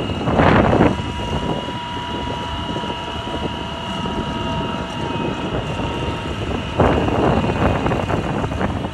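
Wind buffeting the microphone in gusts, loudest about half a second in and again over the last two seconds, over a steady low rumble with a faint steady whine.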